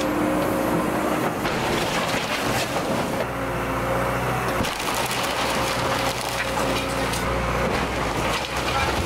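Cat 314E excavator running, its engine and hydraulics working under load, while its bucket tears into a house's roof and wood framing with repeated splintering and cracking.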